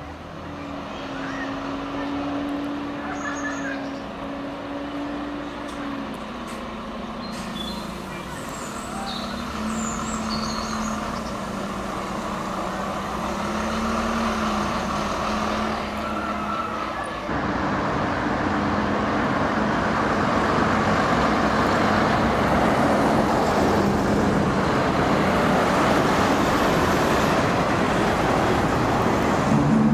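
A double-decker bus's diesel engine running as the bus turns and pulls away, its hum shifting in pitch. About seventeen seconds in, it gives way to the louder engine of a vintage half-cab double-decker running as it drives past close by.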